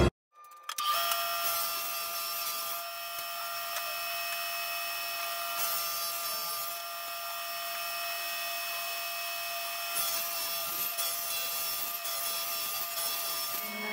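Table saw running and ripping a plywood panel into strips: a steady motor-and-blade whine, with the cutting noise growing louder in stretches as the sheet is fed through.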